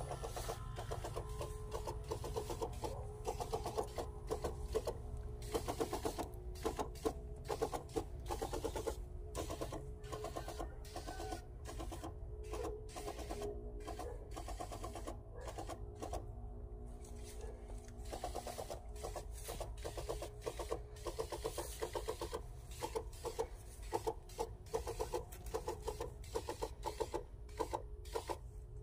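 Backpack sprayer's pump running with a rapid, even mechanical clatter over a steady hum while fungicide is sprayed onto plants, pausing briefly now and then.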